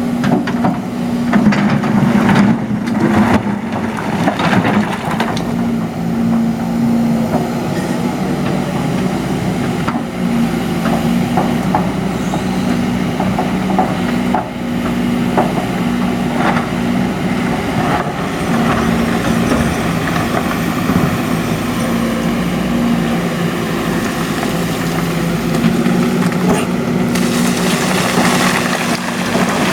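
Heavy diesel machinery engine running steadily under load, with irregular knocks and clatters over the first five seconds and a few scattered ones later.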